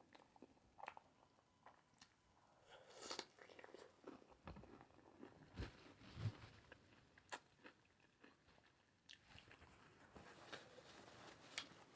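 Faint close-up eating sounds of a person chewing food: irregular wet smacks and small crunches, busiest about three seconds in.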